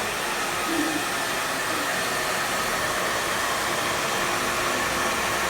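Handheld hair dryer blowing steadily, a constant airy hiss with a faint motor whine.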